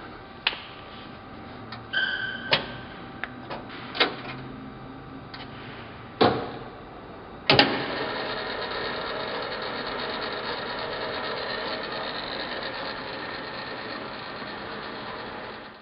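Scattered clicks and knocks with a short squeak, then a loud click about halfway through. After it, the Hardinge HLVH toolroom lathe's motor runs steadily.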